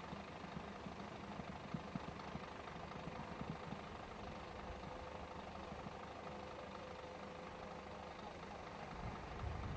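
Heavy diesel engine of a truck-mounted crane idling steadily, with a few faint knocks in the first few seconds; a low rumble swells near the end.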